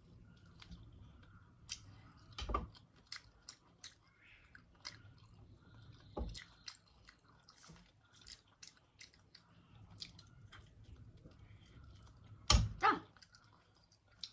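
Close-up mouth sounds of someone eating spicy Maggi instant noodles: chewing and lip-smacking as a string of small wet clicks. A few louder thumps come about two and a half, six and twelve and a half seconds in.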